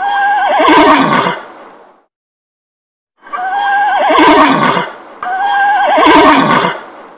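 Horse whinnying three times, each a neigh with a quavering, shaking pitch that trails off. The second and third follow straight after each other, and all three sound alike.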